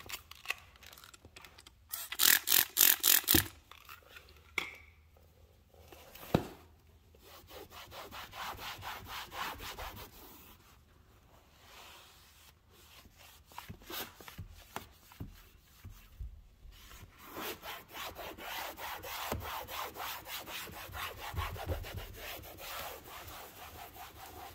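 Microfiber cloth rubbed back and forth over a car's interior door panel in quick, repeated wiping strokes. The strokes come in spells, the loudest a fast flurry about two seconds in, with short pauses between.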